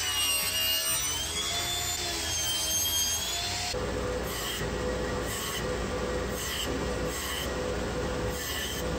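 Table saw ripping a pine strip, its blade whine wavering in pitch under load. A few seconds in it changes to a band saw running steadily as notches are cut across the strip.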